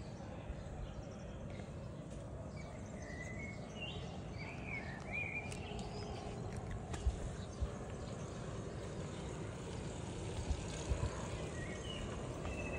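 Outdoor park background: a steady low background hum with a few short bird chirps about three to five seconds in and again near the end, and a few faint small clicks.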